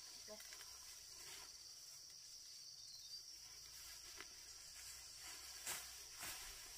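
Faint, steady high-pitched drone of insects in the background, with a few soft taps or clicks; the sharpest comes near the end.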